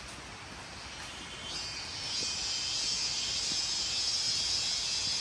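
Insect chorus in forest: a high, steady, shrill drone that starts about a second and a half in, swells quickly and then holds loud.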